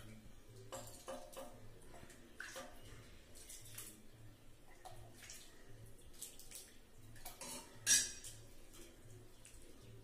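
Metal ladle scraping and clinking against a cooking pot as thick brown rice porridge is scooped and poured into a plate, with the wet slop of the porridge. One louder clink comes near eight seconds in.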